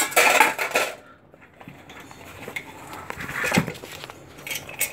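Handling noise as a stainless steel water bottle and cup are brought out and put with a faux-leather bag: a burst of rustling and scraping in the first second, then quieter fumbling with a soft bump about three and a half seconds in.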